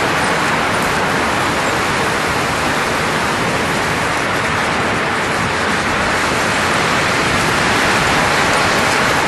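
A steady, even rushing hiss of blowing air, holding the same level throughout with no gusts or breaks.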